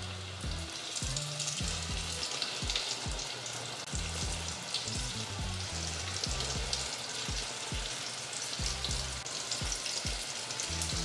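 Battered chicken tenders deep-frying in hot oil, a steady crackling sizzle, with background music beating evenly underneath.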